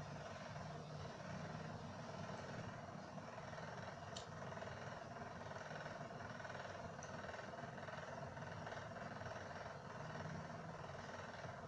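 Steady low background hum, with a single faint click about four seconds in.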